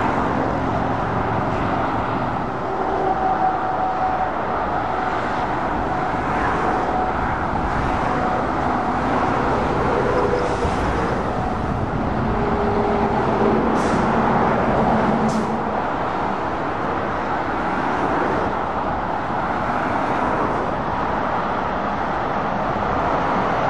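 Steady motorway traffic: articulated lorries and cars passing in a continuous wash of tyre noise and diesel engine drone, with engine tones swelling and fading as each vehicle goes by.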